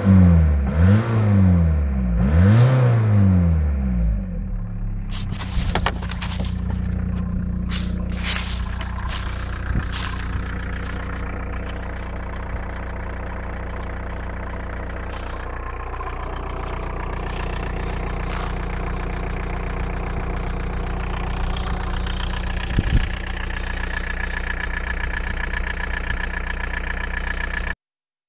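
Volkswagen 1.9 TDI four-cylinder turbodiesel engine revved briefly three times, then idling steadily, with a ticking noise that new lifters and injectors have not cured and that the owner takes for play in a wrist pin.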